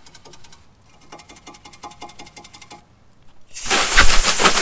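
A small brush scrubbing the exhaust tips of a VW Golf R in quick, even strokes. About three and a half seconds in, a loud spray of water from a hose hits the tips and rear bumper to rinse them.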